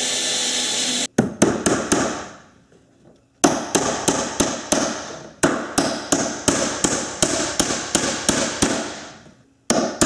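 A cordless drill runs steadily for about a second as it bores a pilot hole in a bamboo stair nosing, then stops. A claw hammer then taps a finish nail into the nosing: a few blows, a short pause, then a long run of quick blows, about three to four a second, and one last blow near the end.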